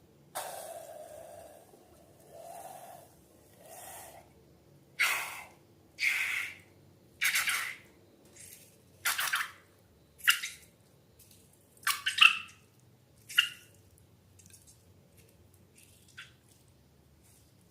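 Slime being squished and squeezed: a run of short wet squelches, about one a second, thinning out to a few faint ones near the end.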